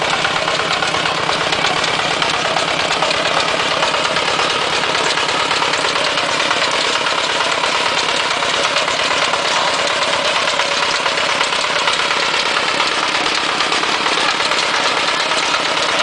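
Single-cylinder diesel engine of a two-wheel walking tractor running steadily under load as it pulls a potato digger through the soil.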